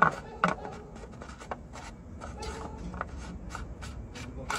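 Oil filler cap being screwed onto an engine's valve cover by a gloved hand: two sharp clicks near the start, then light scraping and ticking of the cap turning, over a steady low hum.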